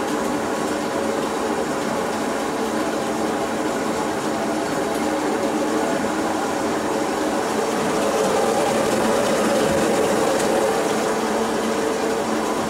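Motorized grape crusher-destemmer running steadily, its auger turning and crushing bunches of wine grapes in the stainless-steel hopper. A steady mechanical hum with a rattling, churning texture, slightly louder about two-thirds of the way through.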